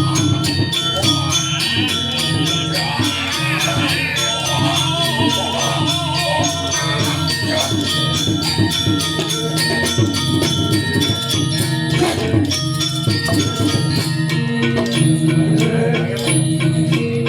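Music with jingling, rattling percussion and steady pitched tones that change in steps, struck in a dense, even rhythm.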